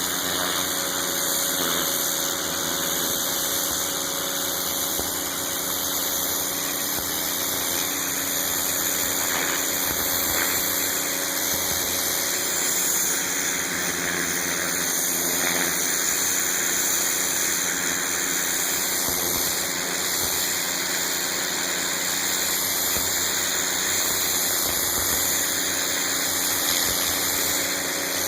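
A Northstar pressure washer's 9 hp Honda GX single-cylinder engine running steadily under load, with the hiss of high-pressure water from a turbo (rotating) nozzle spraying onto a surface.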